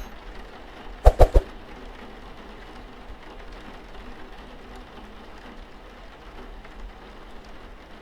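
Steady rain falling. About a second in, three sharp knocks come in quick succession.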